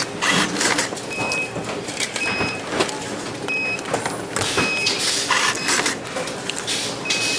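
Electronics assembly floor ambience: a steady machine hum and the rustle and clatter of parts being handled, with short high electronic beeps repeating four times at uneven intervals of about a second or more.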